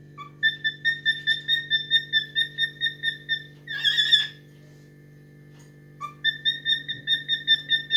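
Cockatiel whistling a fast run of short repeated notes, about five a second, then a louder warbled phrase and, after a pause, a second run of the same notes. A steady low hum runs underneath.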